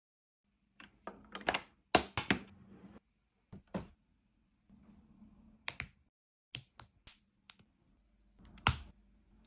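LEGO bricks being handled and pressed together: sharp plastic clicks and clacks in short clusters with pauses between.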